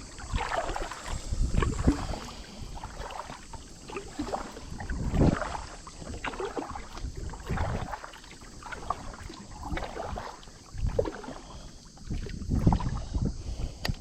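Water splashing and sloshing around a small fishing boat, in irregular surges every second or two.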